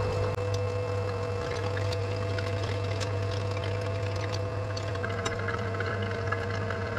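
Turbo oil scavenge pump running with a steady hum while oil and air gurgle through a loosened return line. The pump is sucking air past the oil rather than drawing the oil uphill.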